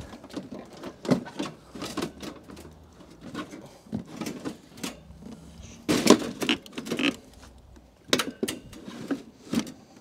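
Window air conditioner's plastic coil shroud and housing parts clicking and knocking as they are handled and fitted back onto the unit's chassis. The knocks come irregularly, with a cluster of louder ones about six seconds in and more near the end.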